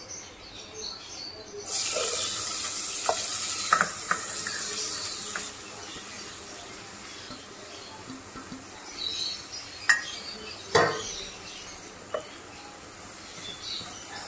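Chopped vegetables (cabbage, spring onions, capsicum) going into hot oil in a nonstick pan: a loud sizzle starts about two seconds in and eases after a few seconds into a quieter sizzle. A spatula stirs the vegetables and knocks against the pan a couple of times near the end.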